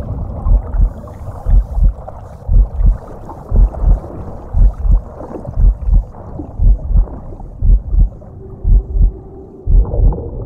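Heartbeat sound effect: paired deep thumps, lub-dub, repeating about once a second over a faint rushing background.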